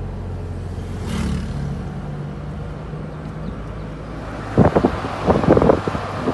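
A car driving along a road, heard from inside: a steady low engine and road rumble. About four and a half seconds in comes a cluster of loud, sharp thumps and buffets.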